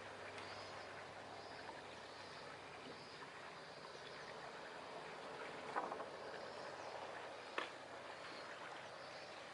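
Small waves lapping in a fishing harbour, a soft steady wash, with two sharp knocks in the second half, about a second and a half apart. A faint high chirp repeats throughout.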